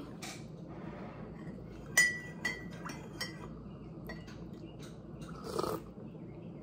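A metal spoon clinking against a ceramic coffee mug: one sharp ringing strike about two seconds in, then a few lighter taps. A brief soft noise follows near the end.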